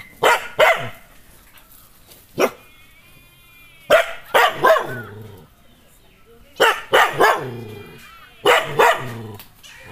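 Nadan, a Kerala native dog, barking aggressively at strangers in short runs of two or three barks, with pauses of a second or two between the runs.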